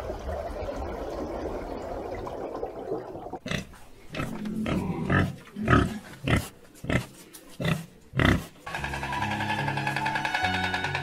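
A soft hiss of underwater ambience, then a run of about eight short pig grunts and squeals from piglets nursing at a sow. Music with held notes comes in near the end.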